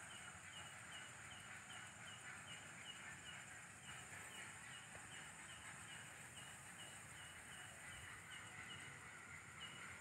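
Faint night insect chorus: a cricket chirping steadily, nearly three chirps a second, over a steady high insect buzz.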